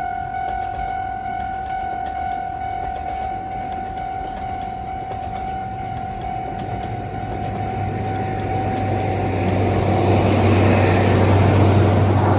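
Level-crossing warning signal sounding a steady tone while a train approaches and passes, its rumble and low hum building from about halfway through and loudest near the end.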